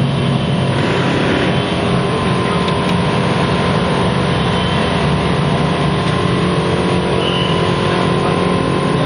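A loud, steady engine-like drone with a constant hum, running unchanged throughout.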